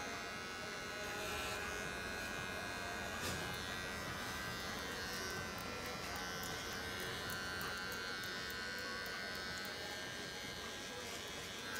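Electric animal hair clippers buzzing steadily while clipping the fur around a dog's ear, ahead of treating its outer-ear infection.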